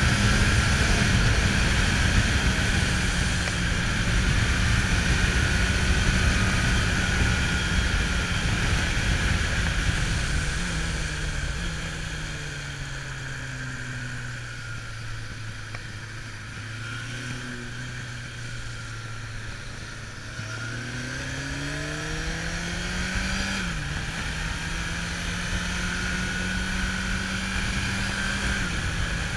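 Kawasaki Zephyr 750's air-cooled inline-four engine running on the move, with wind noise. The revs fall and stay low through a tight bend around the middle, then climb as it accelerates out. There is a quick dip at a gear change, then the revs rise again to a steady cruise.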